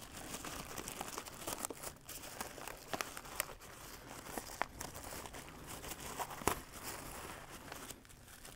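Clear plastic bag crinkling and rustling as a new alternator is worked out of it by gloved hands, with irregular crackles and a few sharper snaps.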